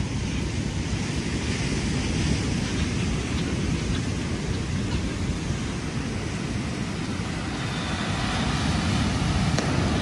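Wind buffeting the microphone in a low, rumbling rush, over a steady hiss of rain and breaking surf; it grows a little louder near the end.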